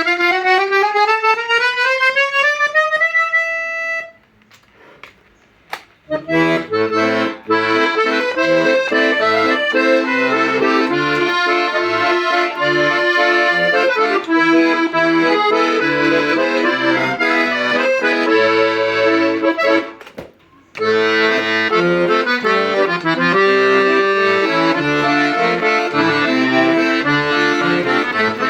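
Hohner Concerto III accordion played in a sound test. It opens with a single-note scale rising step by step, then after a two-second pause plays a tune with chords over separate bass notes. The playing stops briefly about 20 seconds in, then resumes.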